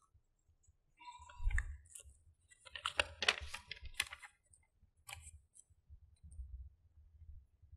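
Folded paper strip being handled and unfolded, crinkling and rustling in a run of irregular crackles that are loudest about three to four seconds in, with a soft thump about a second and a half in.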